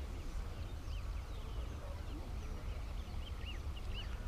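Outdoor ambience: birds giving short rising-and-falling chirps, several in the second half, over a low rumble of wind on the camera microphone.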